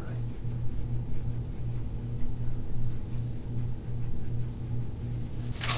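Steady low mechanical hum pulsing evenly about two to three times a second, with a brief rustle near the end.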